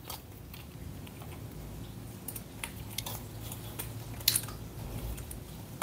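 Small metal clicks and taps of a PWK carburetor's slide and top cap being fitted by hand, with a sharper click about four seconds in.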